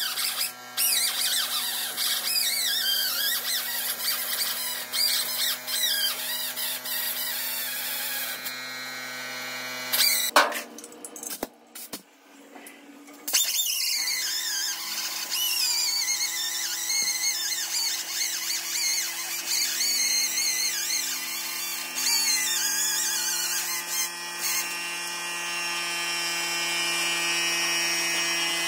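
Air-powered cut-off tool whining as it cuts through a seized leaf-spring bolt that only spins, its pitch sagging and recovering under load, with a break of a few seconds near the middle. Background music with sustained notes plays underneath.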